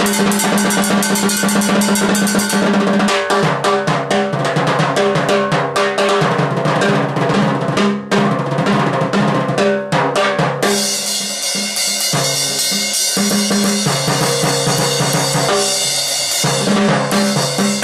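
Timbales struck rapidly with sticks in a Latin percussion jam, over steady low bass notes. About halfway through, a bright cymbal starts ringing over the drumming.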